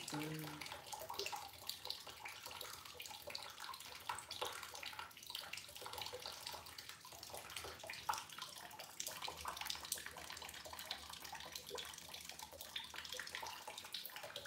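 Water splashing and trickling in a reef aquarium, with many small clicks and taps running through it.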